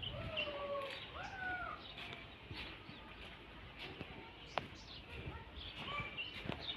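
Small birds chirping in short, high calls throughout, with two drawn-out wavering animal calls in the first two seconds and a few sharp clicks.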